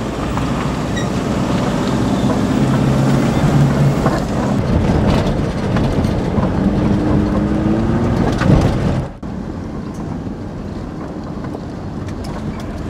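Four-wheel-drive vehicle driving over a rough dirt track, heard from inside the cabin: engine running with road and tyre noise. The engine pitch rises for about two seconds past the middle. About nine seconds in, the sound cuts to quieter, steadier running.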